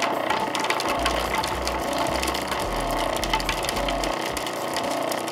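Small food processor motor running steadily while its blade minces a single garlic clove, with fine ticking through the whir.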